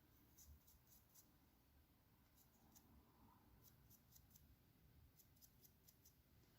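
Near silence, with faint, scratchy strokes of a paintbrush being dry-brushed over a miniature.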